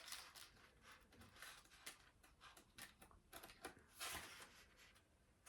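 Near silence with faint paper rustles and soft taps as the pages of a hardcover book are turned, a little louder about four seconds in.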